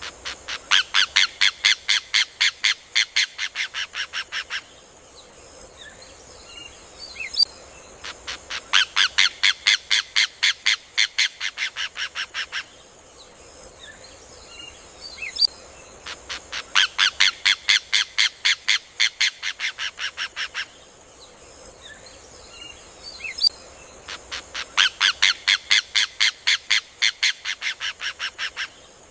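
Rufous hornero (João-de-barro) song: four bursts of rapid, evenly spaced loud notes, each about four seconds long and repeated about every eight seconds, loudest at the start and easing off toward the end. Faint chirps fill the gaps between bursts.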